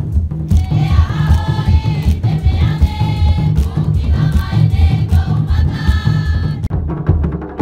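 Marquesan dance performance: a group of voices singing together in chorus over a steady, heavy beat of large drums. The voices break off near the end while the drumming continues.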